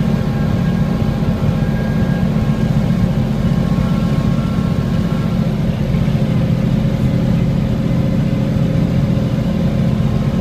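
Big rig's Cummins diesel engine pulling steadily uphill under load, heard from inside the cab as a constant low drone with no gear change.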